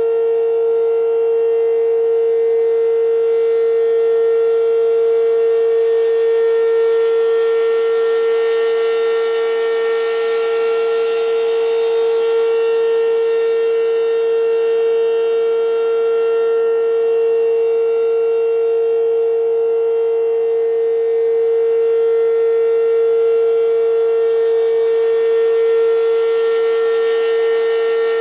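American Signal RM-127 rotating outdoor warning siren sounding the steady Alert signal: one constant, very loud tone that holds its pitch throughout, with slight slow swells in level.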